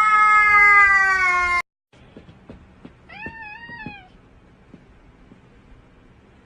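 A cat's long, loud yowl that rises and holds, then cuts off about a second and a half in. After a brief silence, a quieter cat gives one short meow with a wavering pitch, among faint clicks.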